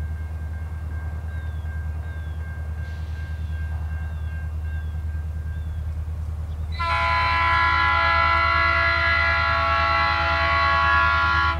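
Norfolk Southern SD40-2 diesel locomotive's multi-chime air horn sounding one long, steady blast for a grade crossing, starting about seven seconds in, over a low steady rumble.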